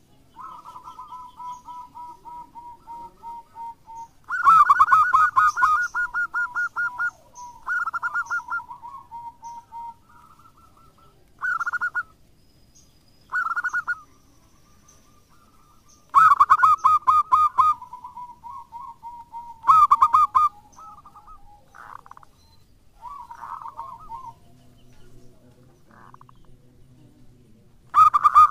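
Zebra dove (perkutut) cooing: about ten bursts of fast staccato coos, each a second or two long, some loud and some faint, with short pauses between.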